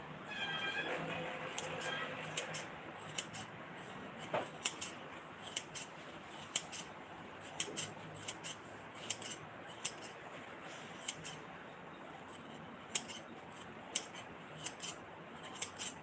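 Scissors snipping by hand: a string of short, crisp cuts at an uneven pace, roughly one every half second to a second.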